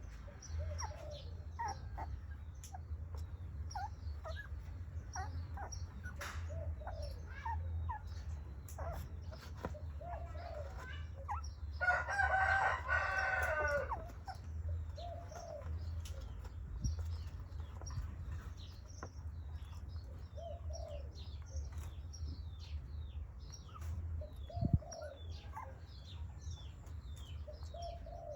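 Birds chirping with many short calls over a low steady hum. About twelve seconds in, one louder drawn-out call lasts about two seconds. A single sharp knock comes near the end.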